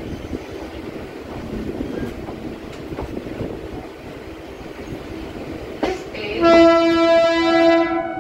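Train running with a steady rumble, then a train horn sounds once about six and a half seconds in: a loud, high, blaring tone held for nearly two seconds.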